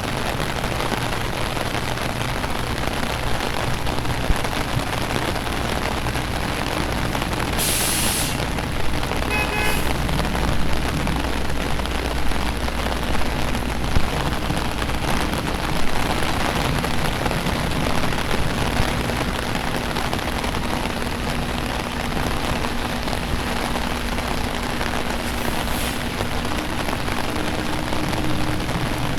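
Steady rain falling on a street, with the low, steady hum of vehicle engines underneath and a short burst of hiss about eight seconds in.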